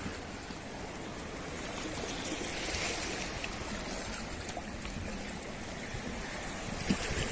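Small sea waves lapping and washing among shoreline rocks: a steady gentle wash that swells a little about three seconds in.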